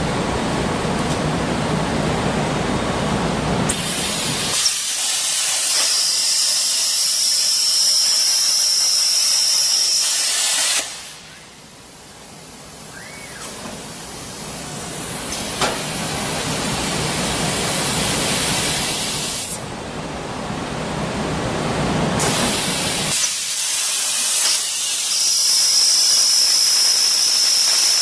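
Hypertherm plasma torch on a CNC plasma cutter cutting: a loud, steady hiss of the plasma arc, at times with a thin high whine. It drops away sharply about eleven seconds in, then builds back up.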